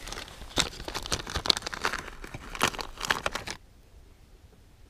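Crinkling, crackling handling noise close to the microphone, a dense run of sharp crackles that cuts off suddenly about three and a half seconds in.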